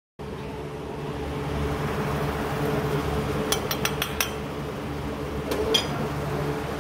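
A metal spatula and a glass bowl clink and tap against a flat-top griddle, a quick run of sharp clicks a little under halfway through and two more near the end, over a steady low hum and hiss.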